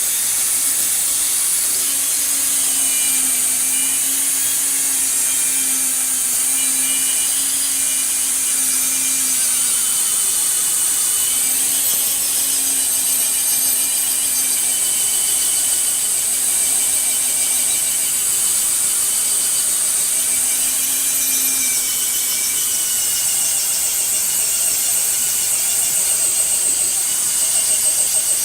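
Angle grinder running continuously against the steel of a rusty axe head, a steady high grinding hiss over a low motor hum.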